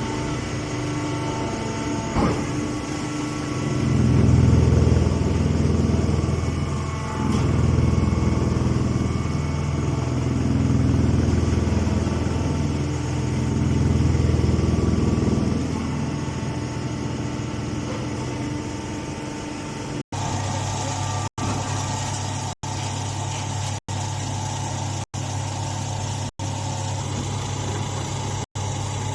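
Round straw baler machinery running, a steady engine-like drone that swells louder and deeper for several stretches in the first half. In the second half the hum holds steady, broken by short silent gaps about every second and a quarter.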